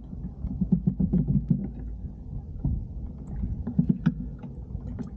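Water sloshing and lapping against a fishing kayak's hull in uneven bursts, with small sharp knocks and clicks from the boat and its gear.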